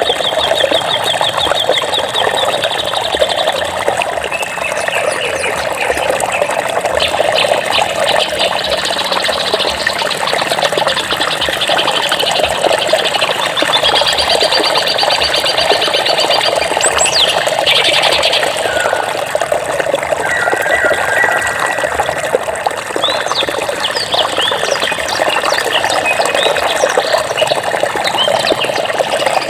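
Steady rush of flowing water with birds singing over it: rapid trills, short whistled notes and scattered chirps, coming and going throughout.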